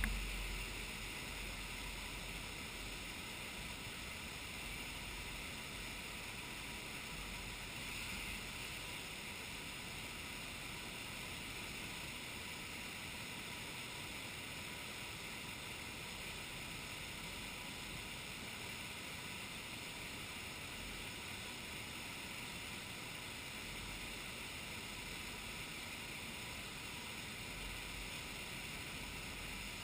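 Steady, unbroken rushing of moving water.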